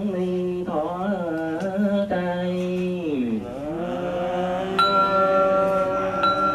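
A monk's voice chanting a Buddhist funeral liturgy through a microphone, long held notes that slide up and down in pitch. About two-thirds of the way through, a small brass bowl bell is struck and rings on under the chant, struck again near the end.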